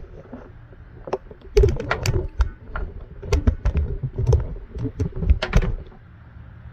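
Handling noise from the camera being picked up and set back in place: a run of irregular clicks, knocks and low thumps close to the microphone, stopping near the end.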